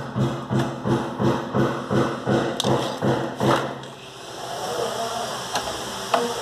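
Rhythmic thuds, about three a second, as the bolt holding a crimped terminal lug is tightened onto its terminal. They stop about four seconds in, and a steady hiss follows.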